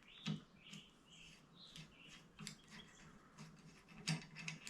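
Faint short squeaks and light clicks of metal on metal as a bicycle bottom bracket's adjustable cup is loosened and worked with a screwdriver.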